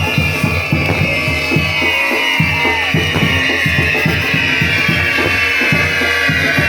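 Loud music with a steady pounding drum beat. Over it, a high whistle slowly falls in pitch.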